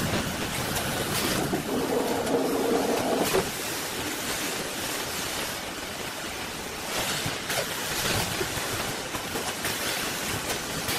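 Servo-driven radiator core steel wire tying machine running, a steady mechanical clatter with a motor hum for about a second and a half starting about two seconds in, and a few sharp clicks.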